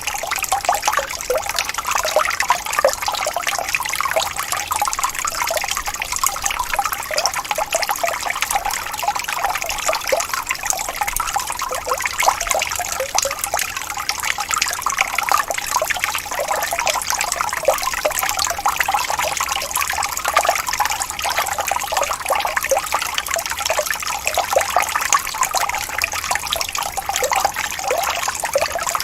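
Small waterfall: water falling and splashing steadily, a continuous babbling trickle with many small splashes.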